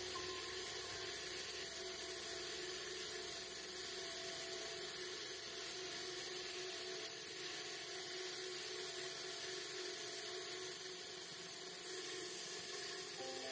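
Wood lathe running steadily with a hand-held turning tool cutting the spinning spindle: a continuous hiss of shaving over a steady motor hum.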